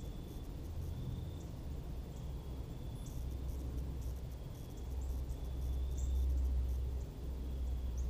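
Evening garden ambience. A steady low rumble, loudest in the second half, lies under faint short insect trills that repeat about once a second. A few brief high chirps come through now and then.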